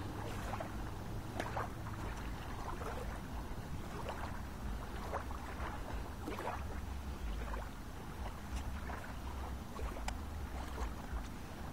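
Lakeshore ambience: wind rumbling on the microphone and small ripples lapping and splashing at the water's edge, in many short, soft splashes.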